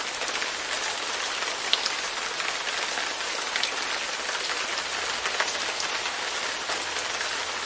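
Light rain falling steadily on a window pane: an even hiss with scattered individual drops ticking against the glass.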